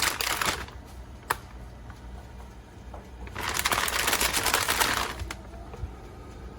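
A plastic bag crinkled in two bursts, at the start and again from about three and a half to five seconds in, with a single click between. Under it runs the low steady hum of the Black+Decker Crisp 'N Bake toaster oven's air-fry fan, running quietly.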